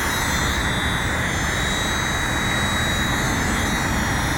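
Steady, unbroken mechanical rush with a faint high whine from the tower crane's hydraulic climbing unit running while the top section is jacked up. The noise holds level throughout.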